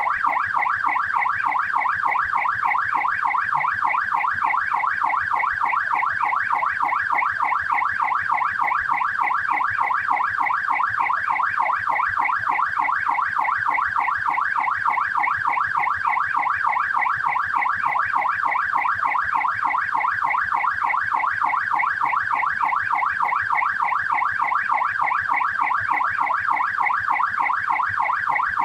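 Australian police car siren on the yelp setting: a fast, evenly repeating up-and-down wail that runs on without a break.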